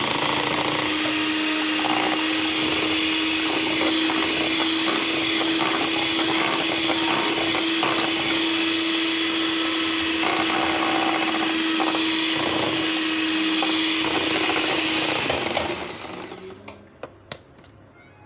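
Electric mixer running at a steady speed, beating cake batter of eggs, sugar, milk and oil in a bowl; it switches off about three-quarters of the way through.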